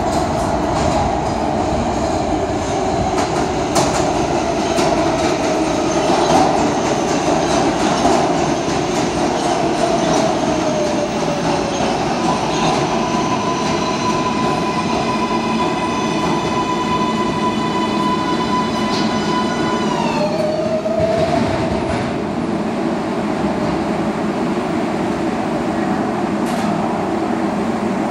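R142A subway train pulling into the station with wheels rumbling and clicking over the rail joints. Its motor whine falls as it brakes, then holds as a steady high whine that drops away abruptly as the train comes to a stop about two-thirds of the way in. The standing train then gives off a steady hum.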